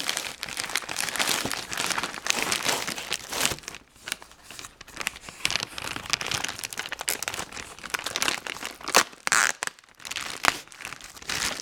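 Cardboard shipping box and its packing material being pulled open by hand, an irregular run of crinkling, rustling and tearing with a few louder crackles near the end.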